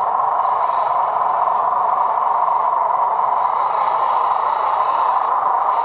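Radio-controlled model truck's electric motor and gearbox running steadily.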